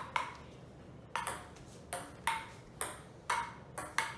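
Table tennis rally: the ball clicking sharply off the paddles and the tabletop, about ten hits in an uneven back-and-forth rhythm.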